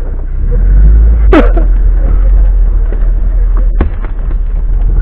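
Off-road vehicle engine and cab rumble heard from inside as it moves off over a rough forest track, the deep rumble swelling about half a second in. A brief sharp sound just over a second in and a knock near the end.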